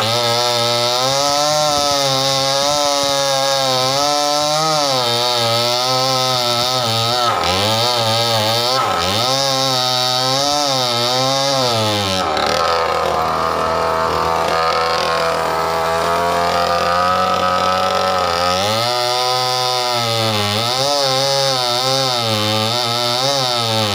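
Stihl 070 two-stroke chainsaw cutting through mango wood, its engine pitch wavering up and down under load. About halfway through it drops to a lower, steadier pitch for about six seconds, then climbs back and cuts on.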